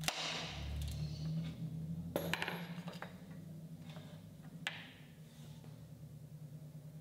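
Claw hammer prying a loose, glued wooden batten off a bed rail: knocks and scraping of steel on wood, loudest at the start and again around two seconds in, then a single sharp tap a little before five seconds.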